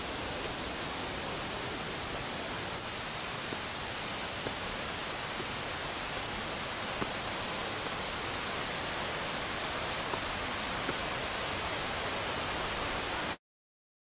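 Steady rushing of a mountain stream, an even hiss with a few faint clicks from steps on the stones. It cuts off abruptly near the end.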